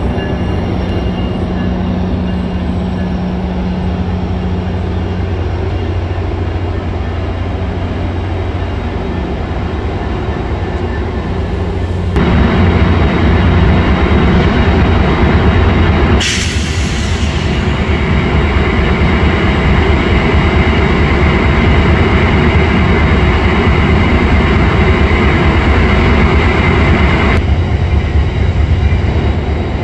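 Metrolink F59PHR diesel locomotive pushing its bilevel passenger train at low speed: a steady low diesel rumble that gets suddenly louder about twelve seconds in as the locomotive runs close by, with a thin high tone over it for much of the second half.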